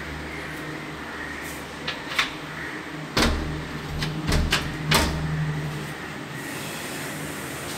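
Several sharp knocks and thumps, most of them bunched in the middle, over a steady low hum.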